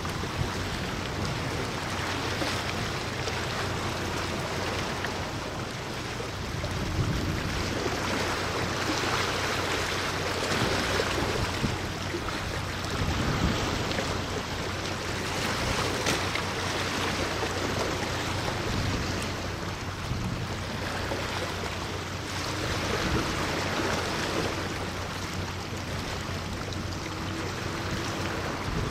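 Steady rushing of wind and sea water, swelling and easing every few seconds, with a faint low hum underneath.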